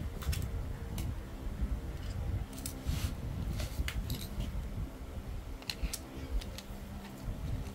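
Scattered light clicks and taps of metal and hard plastic air-rifle grip and stock parts being handled and fitted together, over a low steady hum.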